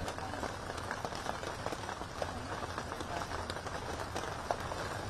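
Steady outdoor background noise with many small, scattered ticks and pops throughout.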